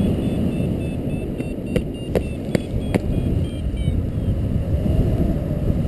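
Wind rushing over the microphone of a paraglider in flight, with a flight variometer giving short repeated beeps that shift in pitch for the first few seconds, the beeping that signals the glider is climbing in lift. A few sharp clicks come in the middle.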